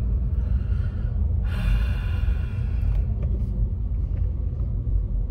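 Steady low rumble of a car's engine and road noise heard inside the cabin, with a hiss that swells up about a second and a half in and dies away about three seconds in.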